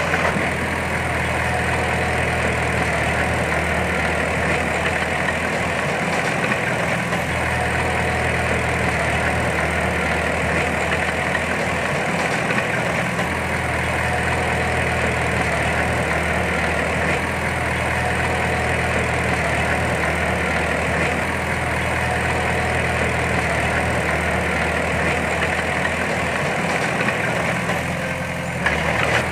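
Large diesel engine of earthmoving machinery running steadily at an even, low engine speed.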